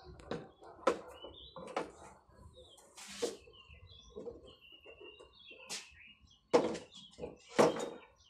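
Hollow plastic hydroponic grow channels knocking and clattering as they are handled and set down on an aluminium stand: a string of sharp knocks, the two loudest near the end. Faint bird chirps in the background.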